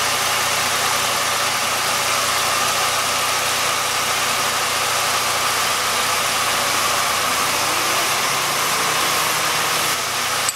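Jeep Liberty 3.7L V6 engine idling steadily, warmed up, heard close up in the engine bay with a steady hiss over it.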